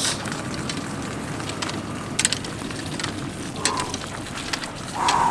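Water running and splashing from a hand pump's spout just after it has been primed, with a few sharp clicks from the pump.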